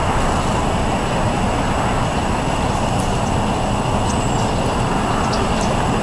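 Steady, loud rushing background noise with no clear rhythm or pitch. A few faint, short high chirps come about three to four and a half seconds in.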